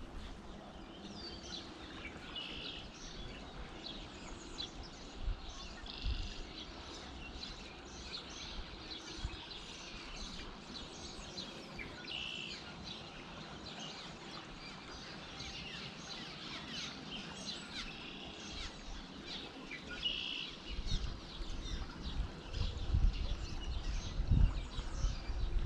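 Several songbirds chirping and singing over the steady rush of a shallow creek riffle. In the last few seconds a low rumble buffets the microphone.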